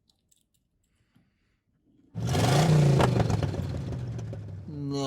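Car engine revving, starting suddenly about two seconds in after near silence and slowly dying away, with a voice-like call starting near the end.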